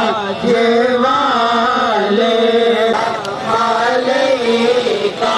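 A voice chanting a naat in long, drawn-out melodic phrases, with a short break about three seconds in.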